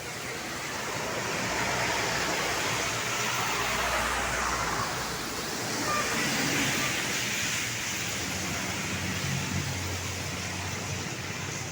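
Road traffic: a vehicle passing close by, its tyre and engine noise swelling and then easing off, with no horn sounded.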